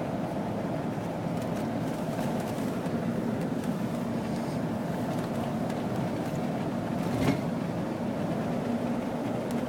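Vehicle driving on a snowy road: steady engine and road rumble, with a single sharp knock about seven seconds in.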